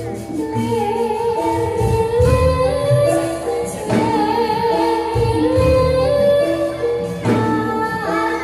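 Javanese gamelan music accompanying jathilan dance: a woman's wavering vocal line over struck metallophone notes and drums.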